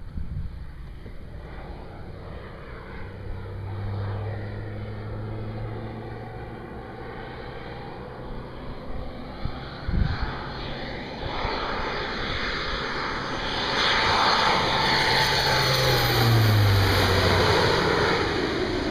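Thrush 510 turboprop crop-duster flying past low, its engine and propeller drone growing louder as it closes in, then dropping in pitch as it passes overhead near the end. A single brief knock about halfway through.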